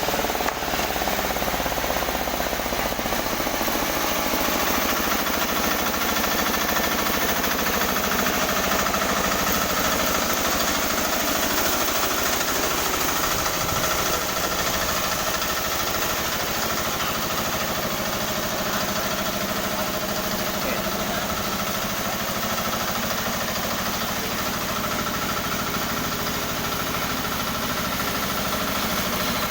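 Newly assembled sawmill machine running steadily on test, its engine and drive running continuously with a slight change in pitch about three seconds in.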